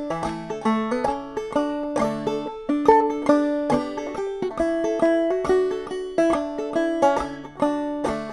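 Open-back five-string banjo played clawhammer style in double D tuning, capoed at the second fret: an instrumental break of even, ringing plucked notes and brushed strums.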